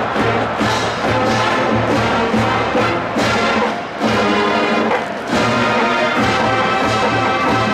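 A marching band's brass and drums playing loudly, full ensemble. The sound dips briefly twice, about four and five seconds in.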